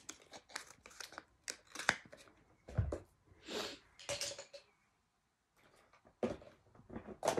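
Makeup products being handled and rummaged through: a string of small clicks and taps with some rustling, and one dull thump about three seconds in.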